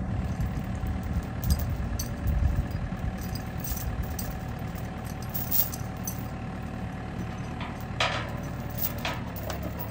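Bobcat mini excavator's diesel engine running steadily, with a steel chain clinking and clanking now and then as it is handled to rig an I-beam.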